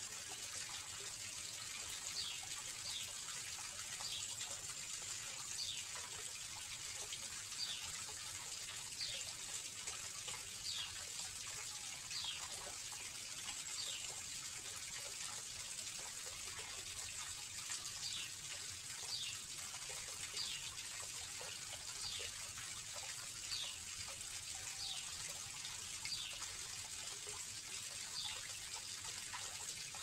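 Small garden pond waterfall: water pouring over a stone ledge and splashing steadily into the pond. A short, faint, high falling note repeats every second or so over the rush of water.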